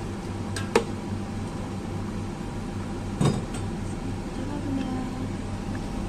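A metal ladle clinking against a stainless-steel pot of boiling seaweed soup: two light clinks under a second in and a louder knock about three seconds in, over a steady low hum.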